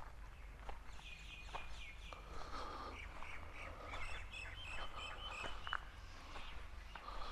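Several wild birds chirping and calling with quick, short, high notes, busiest in the middle, over a steady low rumble.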